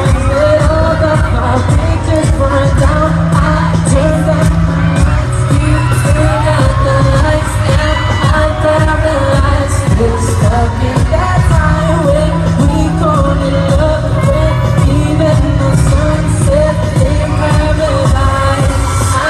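Live pop music played loudly: singing with a band over a heavy bass beat.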